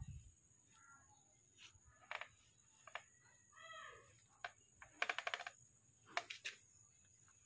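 Faint chicken clucking: a few scattered short clucks, with a quick run of clucks about five seconds in, over a steady high hiss.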